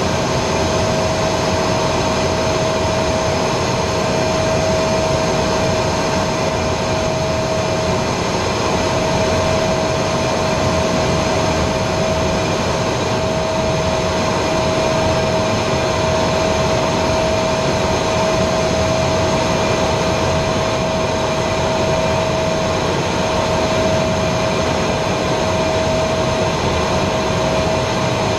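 Cockpit noise of an L-29 Delfin jet trainer in flight: its single Motorlet M-701 turbojet runs at a steady setting under a rush of airflow. A constant whine sits over the noise.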